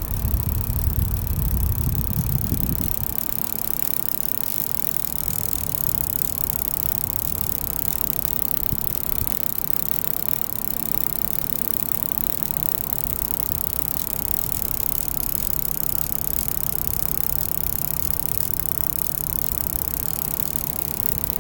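Computer power supply unit running with a steady hum and fan whir, the odd noise its owner is worried about. A heavier low rumble drops away about three seconds in.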